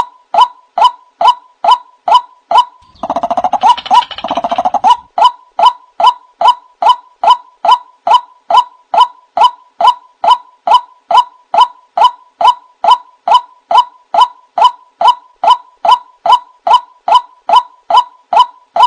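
White-breasted waterhen ('wak wak') calls used as a bird lure: one short, sharp note repeated very evenly, a little over twice a second. From about three seconds in, a harsher, buzzy call runs under the notes for roughly two seconds.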